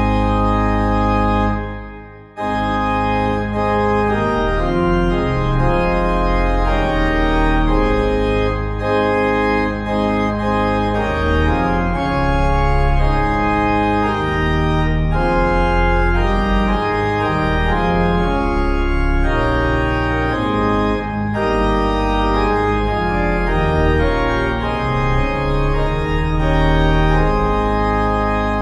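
Organ music playing held chords that change every second or so, with a brief break about two seconds in.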